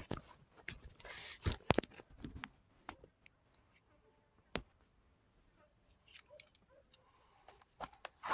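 Faint rustling and scattered sharp clicks, heaviest in the first two seconds and again near the end, with a single sharp click in the otherwise quiet middle.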